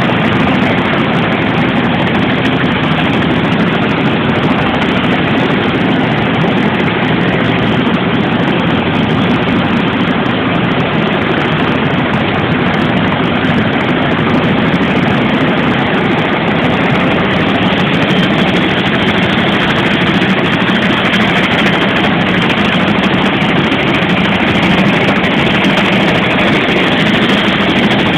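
Boeing Vertol tandem-rotor helicopter running, its turbines and two rotors making a loud, steady drone.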